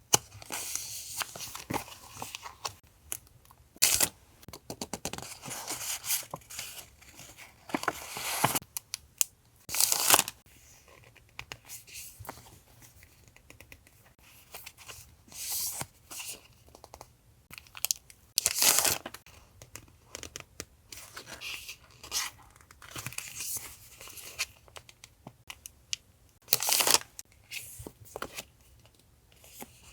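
Paper being torn and handled close up: irregular short bursts of tearing and rustling.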